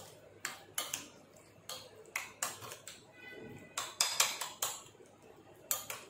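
Metal spoon clinking and scraping against a ceramic bowl while mixing a shredded chicken, grated egg and mayonnaise sandwich filling: irregular sharp clinks, about two a second, loudest in a cluster around four seconds in.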